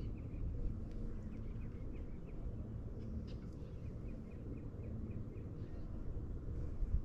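Small birds chirping in quick runs of short, high notes over a steady low rumble.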